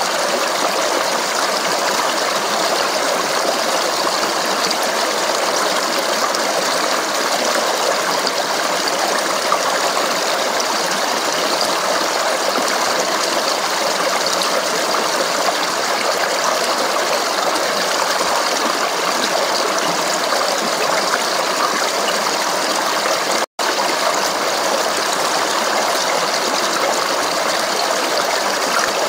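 Running water of a babbling stream, flowing steadily without change. The sound cuts out for an instant about 23 seconds in, then resumes as before.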